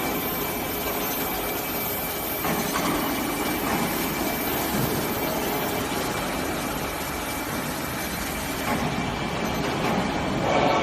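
Steady machinery noise with a constant high-pitched whine running through it.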